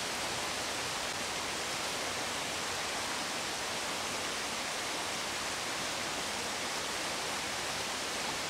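Small stream's water running, a steady even rushing with no breaks.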